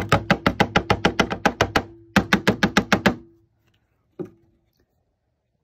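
Black iron pipe cap being tapped rapidly on a plastic gold pan to knock retorted gold out of it: two quick runs of sharp ringing taps, about seven a second, then a single tap about four seconds in.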